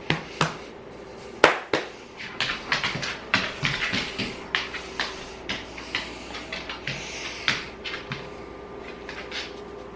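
Dog moving about close by on a hard kitchen floor: a rapid, irregular run of small clicks and taps, with one sharper knock about a second and a half in, over a faint steady hum.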